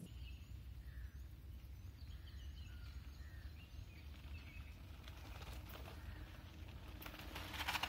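Faint bird chirps over a low, steady rumble of wind on the microphone; near the end a rising rustle and crunch as a mountain bike comes down the dirt trail toward the microphone.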